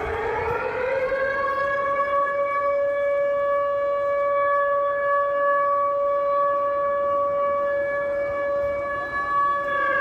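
Civil defence air-raid siren sounding an air-raid alert. Its pitch rises over the first second or so, holds one steady note, and begins to fall right at the end.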